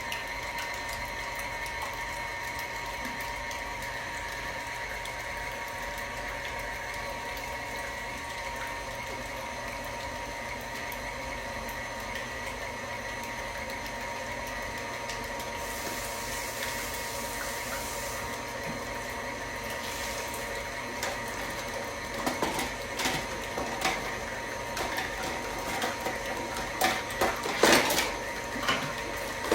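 Electric mixer running at a steady speed, blending pumpkin cake batter, a constant motor whine. In the last several seconds, irregular clicks and knocks join the whine.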